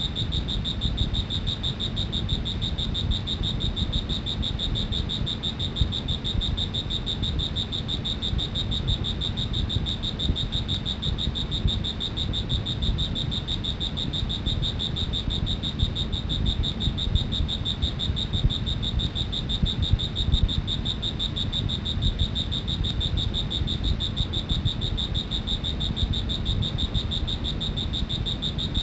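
A cricket trilling without a break: a steady, rapidly pulsed, high-pitched chirping over a low background rumble.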